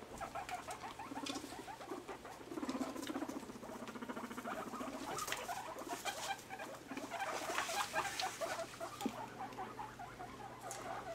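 Several guinea pigs calling in strings of short, rapid pulses while moving about and rustling in wood-shaving bedding around a metal food bowl, with scattered small clicks.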